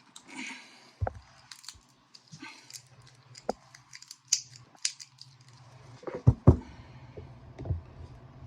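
Metal tools prying and snapping a battery cell free of its welded nickel tabs and wrap: scattered sharp clicks, snaps and scrapes, with two louder knocks about six seconds in.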